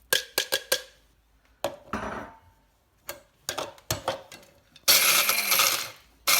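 Kitchen handling sounds: sharp clicks and clinks of hard items against dishes or a container, with a short rattle near the second mark and a louder rattling noise lasting about a second near five seconds.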